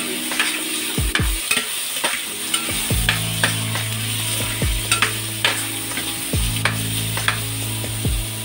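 Food stir-frying in a pan: a steady sizzle, with a spatula clicking and scraping against the pan again and again as it is stirred.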